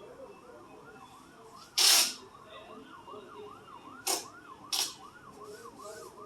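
A siren yelping in the background, its pitch rising and falling quickly about two or three times a second, with three short, loud hissing bursts about two, four and nearly five seconds in.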